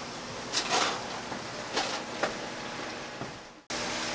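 Rustling handling noise from a hand-held camera being carried, with a few louder scuffs in the first half. Near the end it fades out and cuts to a steady low hum with light room noise.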